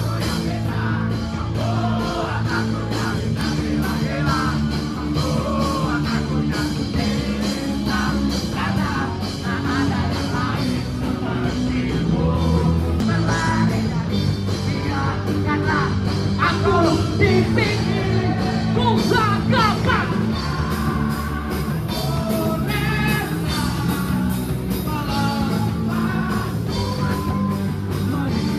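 Rock song with a singing voice over a steady driving beat.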